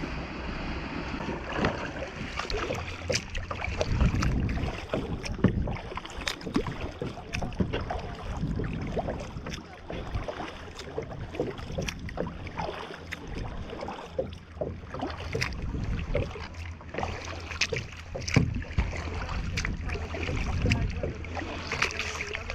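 Kayak paddling: irregular paddle splashes and drips with water lapping against the hull, over wind rumbling on the microphone.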